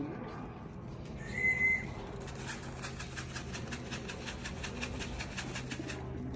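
A single short, high whistle held steady for about half a second, then a rapid soft fluttering patter, about five or six beats a second, lasting some four seconds.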